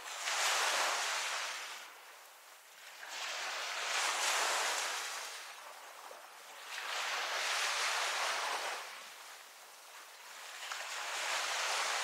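Small waves breaking and washing up the shore: four rushing swells, each about two seconds long, about every three and a half seconds.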